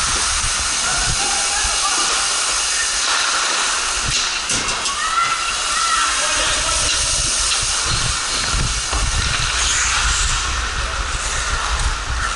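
Ice hockey game in an indoor rink: a steady hissing wash of skates on the ice and arena noise, with scattered knocks of sticks and puck and faint shouts. Heavier low thumps and rumbling come in the second half.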